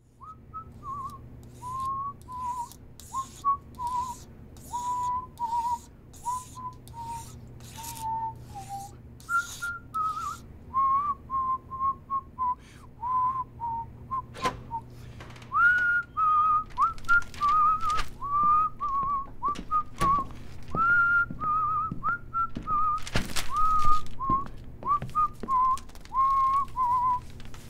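Someone whistling a slow, wandering tune. Soft swishing strokes about once a second run under it for the first ten seconds or so, and a few sharp clicks come later.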